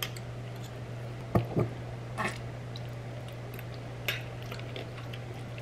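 A spoon scooping relish from a glass jar into a glass dish of mashed chickpeas: two light taps on glass a little over a second in, then a few soft, wet scrapes, over a steady low hum.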